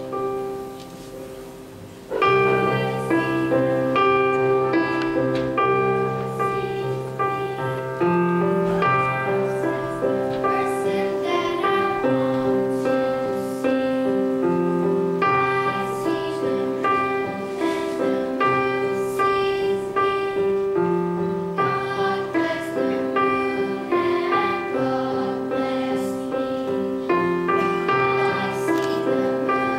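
Electronic keyboard playing a slow accompaniment with a piano sound, with a group of girls singing. The music comes in loudly about two seconds in, after a quieter start.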